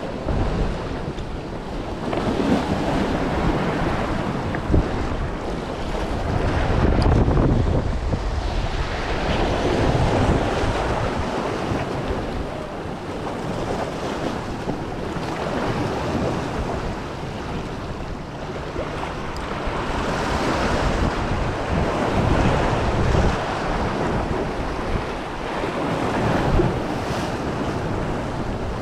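Sea waves washing in and wind buffeting the microphone, the noise swelling and easing every few seconds.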